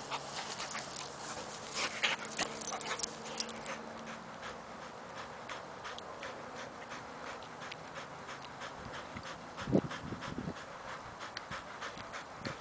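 An American Staffordshire Terrier panting quickly in an even rhythm, out of breath from rough play. In the first few seconds there are sharp clicks and rustles as the dogs wrestle. About ten seconds in there is one short, louder, lower sound.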